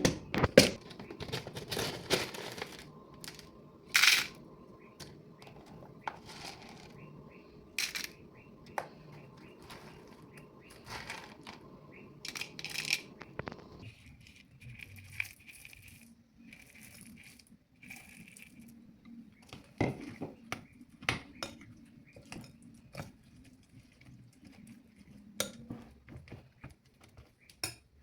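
Scattered sharp clinks and taps of a spoon against a bowl, with some crinkling of packets, as toppings are added to a bowl of oats.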